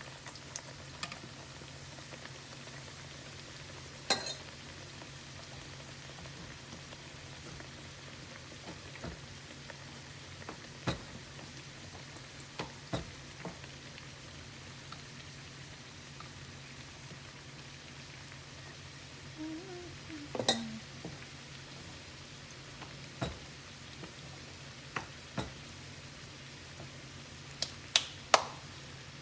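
Bakes frying in hot oil, a steady sizzle, with occasional sharp knocks and clinks, the loudest about twenty seconds in and two close together near the end.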